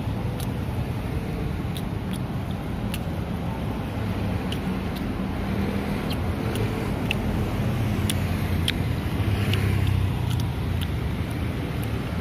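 A motor vehicle's engine running close by: a steady low hum that grows louder about eight to eleven seconds in, with scattered sharp clicks over it.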